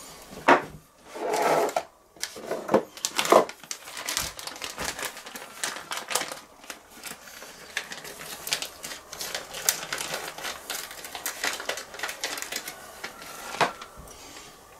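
Kitchen food-prep handling: a few sharp knocks and a brief rustle, then a long run of quick, light clicks and rattles, with one more sharp click near the end.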